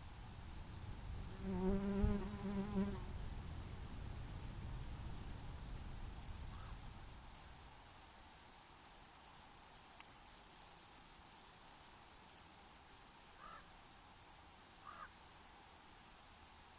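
A flying insect buzzing loudly past for about a second and a half, over a steady, even rhythm of high-pitched cricket chirps, about two or three a second. A soft low rumble swells with the buzz and fades away, and a few faint short calls come near the end.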